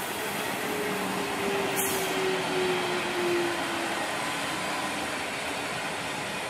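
SNCF electric multiple unit passing along the track: a steady rumble of wheels and running gear, with a faint whine that falls slightly in pitch during the first few seconds.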